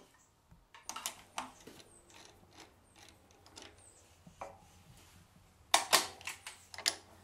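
Metallic clicks and clatter of a T-handle chuck key turning in a four-jaw scroll chuck on a wood lathe, moving the jaws. There are a few clicks about a second in and a louder run of clicks near the end.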